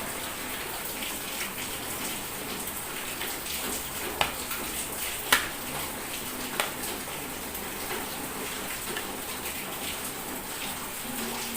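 Steady rain falling on a surface, with a few sharp clicks near the middle.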